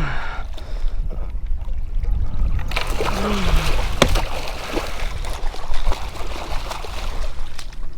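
Water splashing beside the boat as a small hooked striped bass is brought in, starting about three seconds in, with a sharp click about a second later. Wind rumbles on the microphone throughout.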